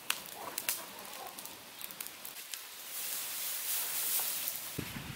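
Burning straw crackling and popping, then from about three seconds in a louder, steady rustling hiss as dry straw is handled.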